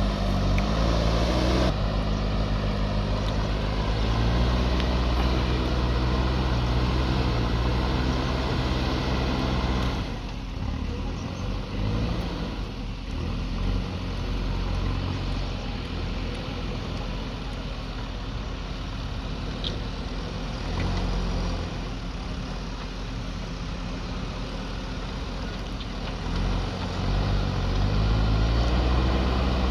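JCB backhoe loader's diesel engine working under load. It runs at high revs for about the first ten seconds, drops to a lower speed, then revs up again near the end.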